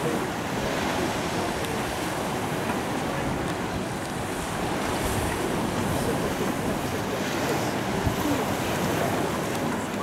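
Sea surf breaking and washing over a pebble beach: a steady rush of waves.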